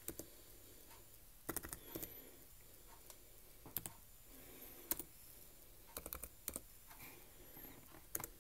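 Keystrokes on a Chromebook Pixel laptop keyboard as a password is typed: faint, irregular clicks coming in small clusters with short pauses between.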